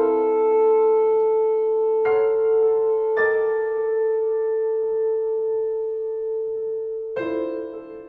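Live classical chamber music. A wind instrument holds one long, steady note while a piano strikes chords under it about two and three seconds in, and a new note and chord come in near the end.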